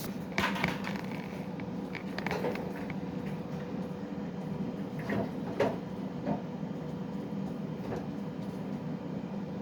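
A handful of irregular knocks and clunks of hands and tools working on water-heater fittings, over a steady low hum.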